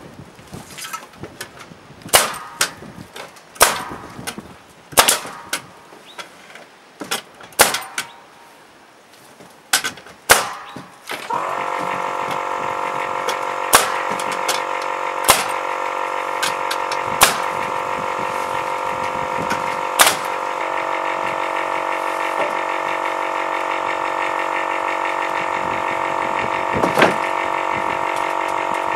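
Pneumatic nail gun firing into the timber joists of a shed base, a string of sharp shots about a second apart. Partway through, an air compressor starts and runs steadily under the later, sparser shots.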